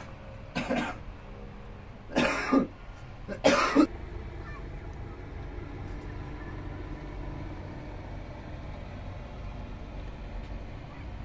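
A person coughing three times, the coughs about a second and a half apart, over a steady low background noise.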